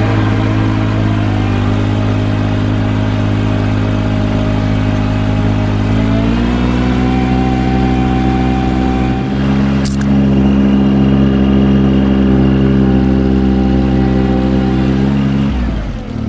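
Ventrac 4500Z compact tractor engine running steadily as the machine is driven. Its pitch steps up about six seconds in and falls away sharply near the end, with one short click partway through.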